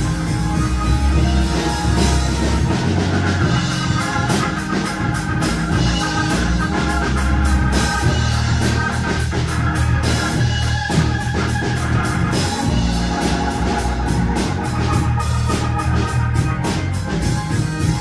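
Organ music playing sustained chords over a strong bass, with drums keeping a steady beat.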